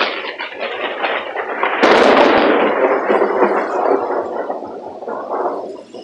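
Thunder from a close lightning strike: crackling that breaks into a sharp crack about two seconds in, then a long rolling rumble that slowly dies away.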